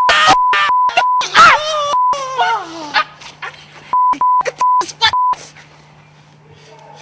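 Shouted speech broken up by a rapid string of short, flat censor bleeps, each one muting the voice, in the first second and again between about four and five seconds in; the voice yells with a falling pitch in between.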